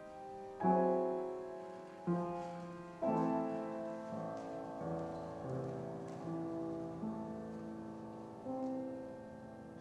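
Slow, quiet piano music. Chords are struck about half a second, two seconds and three seconds in, then softer single notes follow, each left to ring and fade.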